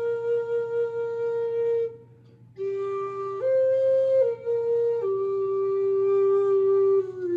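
Flute playing a slow melody of long held notes, with a short pause for breath about two seconds in.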